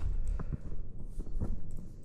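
A few soft footsteps crunching through deep snow, over a steady low rumble.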